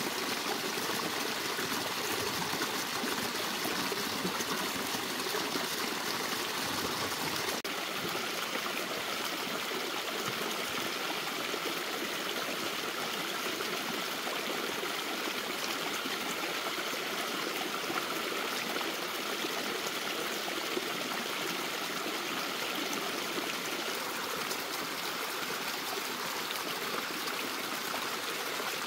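Steady rush and splash of a small waterfall pouring down an earth bank onto rocks and into a shallow pool.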